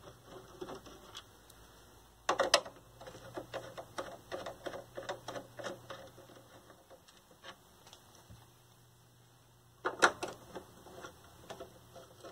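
Light clicking and ticking from a nut driver backing out a TV's chassis screws, with tool and hand contact on the plastic back cabinet. Sharper clacks come about two seconds in and again near the end.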